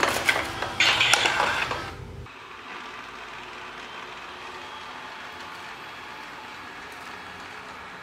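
Ecovacs Deebot U2 Pro robot vacuum starting a cleaning run on voice command. The first two seconds are louder and uneven, then it settles into a steady whirring hiss from its suction fan and brushes as it drives away from its dock.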